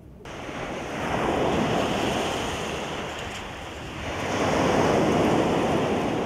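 Sea waves breaking and washing up a pebble beach, the surf swelling louder twice: about a second in and again around five seconds in.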